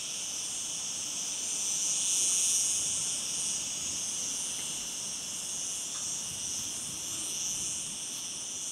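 Steady high-pitched chorus of insects chirring, swelling slightly about two seconds in.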